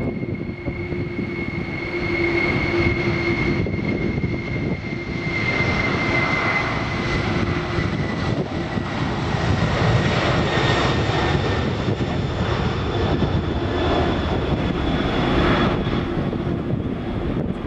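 Jet airliner's engines running loud close by, a steady rumble with a high whine that slowly sinks in pitch as the aircraft passes.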